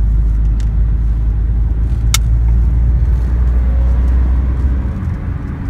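A car climbing a mountain road, its engine and tyres making a steady deep rumble that eases off about five seconds in. A single sharp click sounds about two seconds in.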